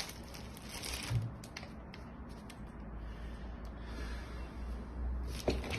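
Handling noise from spray mop parts: a few light clicks and knocks over a low steady hum.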